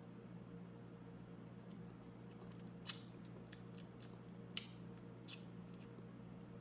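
Faint chewing and mouth clicks of someone eating a piece of candy: a few short, scattered clicks over a steady low hum.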